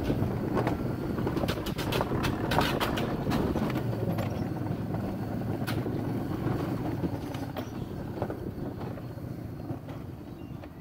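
Alpine coaster sled's wheels rolling along tubular steel rails: a steady rumble with a run of sharp clicks and clacks a couple of seconds in and a few more later, growing quieter over the last few seconds.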